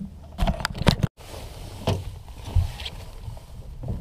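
Several sharp knocks and rattles of handling on a small fishing boat, then a brief dead gap about a second in, followed by a few more thuds over a low rumble.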